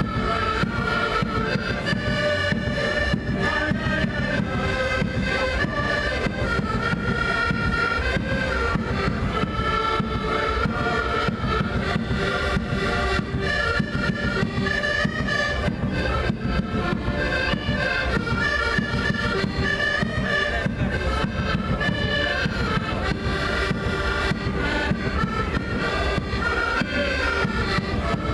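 Several accordions playing a traditional folk tune together in sustained, reedy chords over a steady rhythm.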